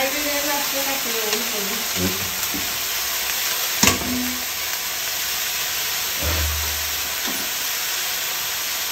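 Food frying in hot oil in a pan: a steady sizzle, with one sharp clack about four seconds in.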